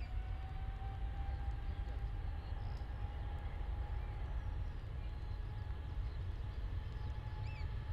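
Jet airliner engines: a whine that rises slowly in pitch and then holds steady, over a low rumble.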